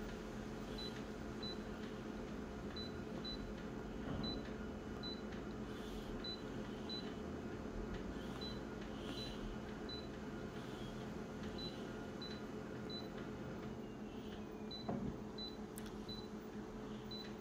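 Photocopier touchscreen control panel giving short, high beeps as its settings are tapped, irregularly spaced, dozens in all, over the copier's steady low hum.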